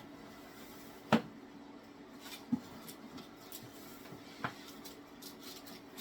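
Light clicks and knocks of kitchen things being handled on a counter, three short ones, the sharpest about a second in, over a faint steady low hum.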